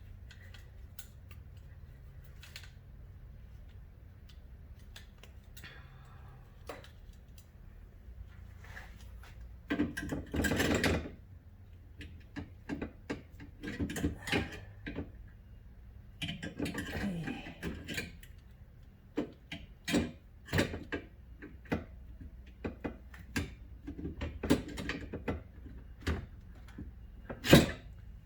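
Metal clicks, knocks and scraping from a French door refrigerator's spring-loaded tilt hinge being forced together by hand and hooked back into place. There are two longer scraping stretches and a loud knock near the end.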